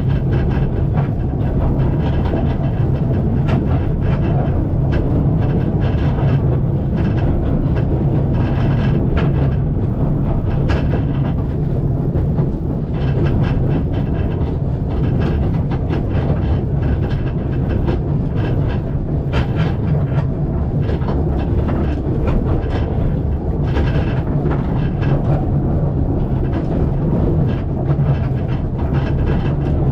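Passenger carriage of a narrow-gauge steam train running along the track: a steady low rumble of wheels on rail, with frequent clicks and rattles throughout.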